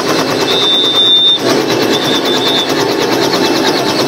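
Helicopter running close by: rapid, even chopping of the rotor blades with a high turbine whine that comes and goes.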